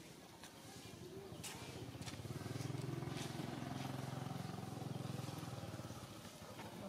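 A motor vehicle engine passing by: a steady low hum that builds about a second and a half in, is loudest around the middle, and fades away near the end. A few faint sharp ticks sound over it.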